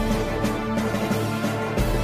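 Intro theme music with held tones and a deep bass swell coming in just before the end.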